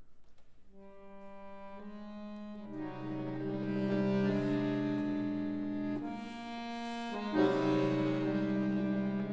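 Chromatic button accordion playing slow sustained chords: a soft single note enters about a second in, more voices and a low bass join and the chord swells louder, then after a brief break a new chord enters loudly near the seventh second.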